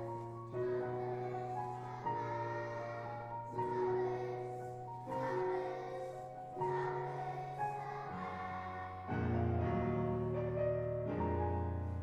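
Children's choir singing a song with piano accompaniment; the piano's low notes grow louder about nine seconds in.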